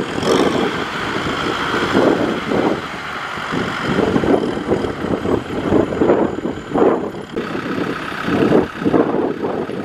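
Kubota M6040SU tractor's diesel engine working under load while its tyres spin and churn through deep mud, pulling a loaded trailer; the sound rises and falls in uneven surges.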